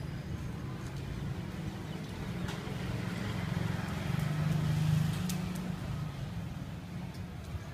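Street background noise with a low engine rumble that swells to a peak about five seconds in and then fades, like a vehicle passing.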